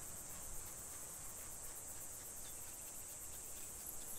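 Quiet, steady, high-pitched chorus of insects, a fast even trill that runs on without a break.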